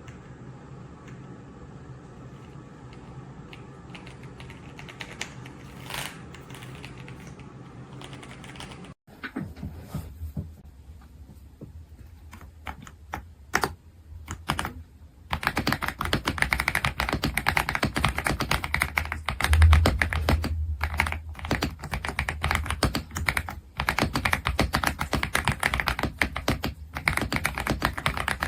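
Typing on an EPOMAKER x Aula F75 gasket-mount mechanical keyboard with Ice Vein switches. A low steady hum with faint ticks comes first, then scattered key presses start about a third of the way in, and from about halfway on there is fast, continuous typing.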